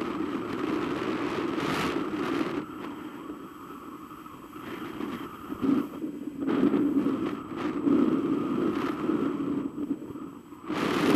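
Airflow rushing over the microphone of a camera mounted on a flying hang glider, swelling and easing unevenly, and growing suddenly louder near the end.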